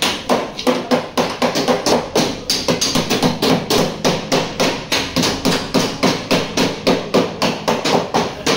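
Rapid, even hammer blows on the damaged edge of a Honda N-WGN tailgate, about four strokes a second, as the bent panel edge is beaten back into shape.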